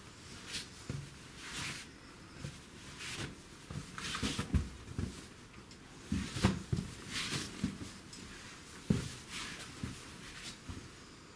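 Footsteps and scuffs on the rocky floor of a narrow cave passage, with clothing and gear rustling and brushing against the rock. They come as irregular short scrapes and knocks, the loudest knock about six and a half seconds in.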